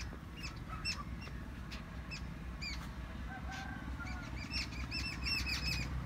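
Small birds chirping: many short, high call notes, coming thicker toward the end, over a low steady rumble.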